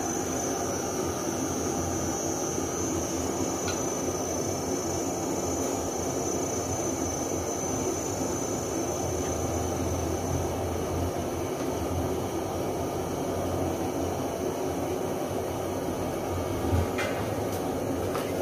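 Steady background rumble and hiss, with a faint high whine that fades out about halfway through. Near the end a light knock as wooden chopsticks lift pandan leaves out of a metal pot.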